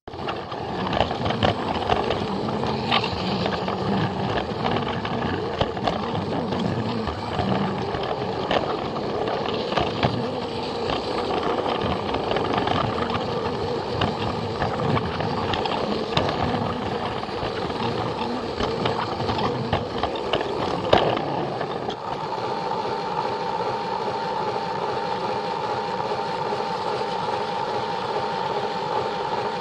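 Battery-powered Plarail toy train running on plastic track: a steady motor whir with the wheels clicking over the track joints. About 21 seconds in there is a sharp knock, and after it the running sound turns smoother with a steady hum.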